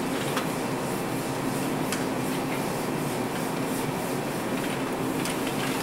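Steady room tone: a constant hiss with a low hum underneath and a few faint ticks.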